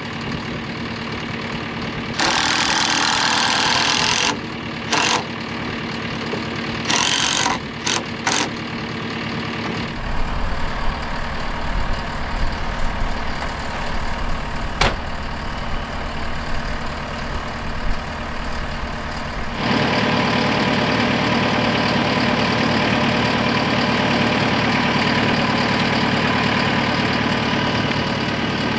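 A cordless impact driver run in several short bursts, then the diesel engine of a JCB Teleskid tracked loader running steadily. The engine is much louder in the last third, close to the machine.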